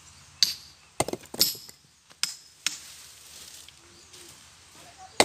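Pieces of split stone knocking and clinking against each other as they are handled and set down: about half a dozen sharp, uneven knocks.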